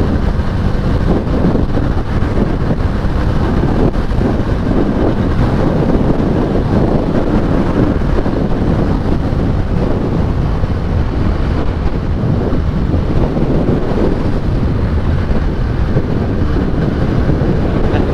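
Steady wind rush on the microphone of a rider on a moving Benelli 302S motorcycle, with the bike's running sound mixed in underneath.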